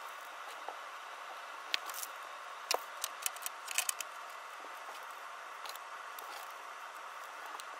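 Cut-out paper template pieces being handled and gathered up off a cutting mat: a run of light taps and rustles about two to four seconds in, and a couple more near the end, over a steady hiss.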